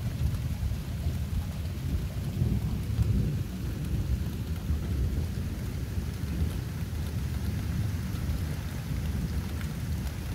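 Thunder rolling in a low, continuous rumble that swells and fades, from a storm that is slowly moving away.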